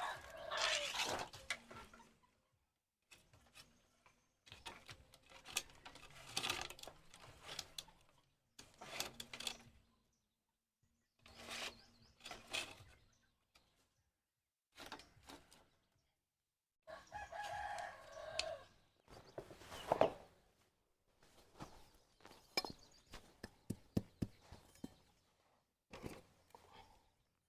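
Chickens calling, with a rooster crowing, in short bursts separated by pauses, mixed with scattered light clicks and knocks.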